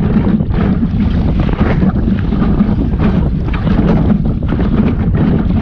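Wind buffeting the microphone in a steady heavy rumble, with irregular splashes and slaps of water against the hull of a small sailing dinghy under way.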